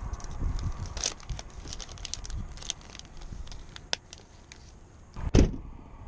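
Plastic bait bags crinkling and rustling as hands dig through a backpack of soft-plastic lures: an irregular run of small crackles and clicks. A single loud thump comes near the end.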